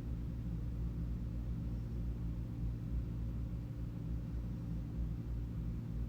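Steady low hum made of several low tones, unchanging throughout, like a motor or fan running.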